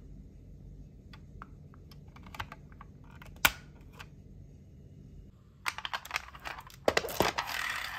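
Toy buses and other small toys clicking and clattering as they are handled: scattered light clicks, one sharp click about three and a half seconds in, then a louder, busier rattle of toys being moved and picked through near the end.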